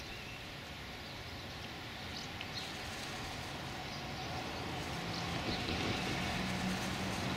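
Distant steam locomotive approaching, its sound growing slowly louder, with a few faint bird chirps.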